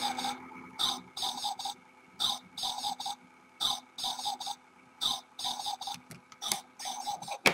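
Electronic barking toy dog running: its sound chip plays short yaps in quick groups through a small speaker, over the steady hum of the single gear motor that drives the legs, tail and head shaker.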